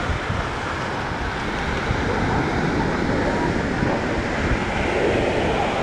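Small surf waves washing onto a sandy beach as a steady rush, with wind buffeting the microphone in a low rumble.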